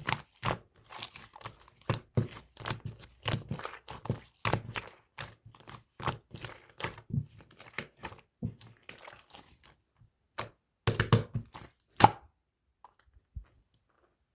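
White slime being pressed and squished by hand, giving a fast, uneven run of sticky clicks and pops. It ends on a loud pop about twelve seconds in, after which only a few faint ticks follow.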